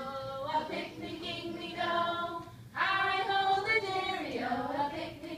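A group of adults and young children singing a simple children's song together, unaccompanied, with a woman's voice clearest.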